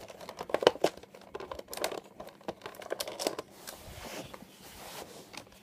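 Cardboard Funko Pop box with a clear plastic window being handled and opened one-handed: irregular crinkling, clicks and scraping of the packaging, with a short hissing rustle about four seconds in.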